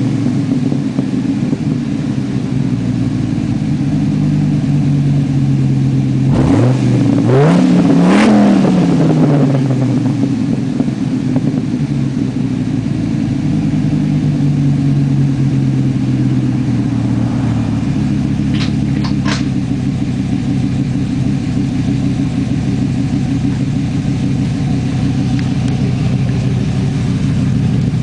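Dodge Ram SRT-10's 8.3-litre V10 idling through a Magnaflow cat-back exhaust, blipped twice about seven seconds in, each rev rising quickly and falling back to idle.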